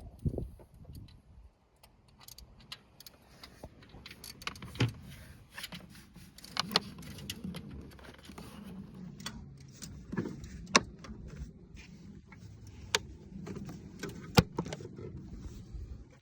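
Metal tools and parts clinking and tapping in irregular sharp clicks, with a louder clank about fourteen seconds in.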